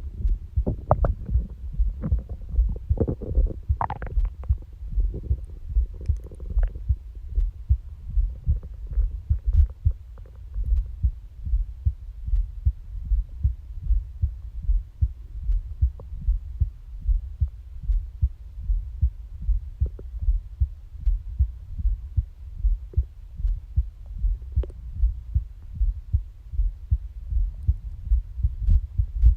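A human heartbeat, heard close on the body as steady, regular low beats. Stomach growling, gurgles with a brief rising squeal, sounds over it in the first seven seconds or so, then fades, leaving the heartbeat alone.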